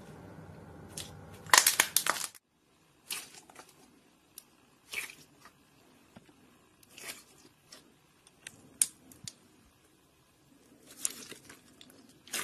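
Thick glossy pigmented slime squeezed and kneaded by hand, giving irregular sharp wet pops and crackles. A dense burst of loud pops comes about two seconds in, then single pops and squelches follow every second or so.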